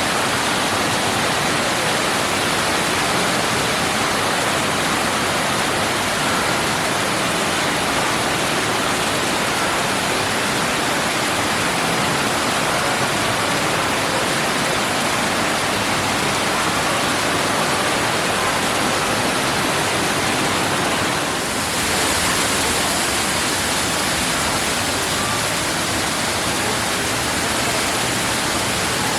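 Man-made indoor waterfall: a steady rush of water falling and splashing into a pool, its tone changing briefly about three-quarters of the way through.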